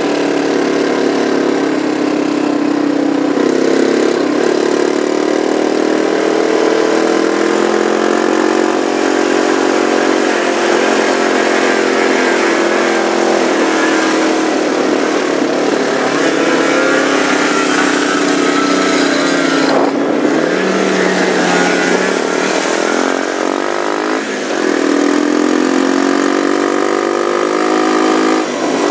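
Snowmobile engine running at speed, its pitch rising and falling as the throttle changes, with a few quick dips and swoops in revs about two-thirds through.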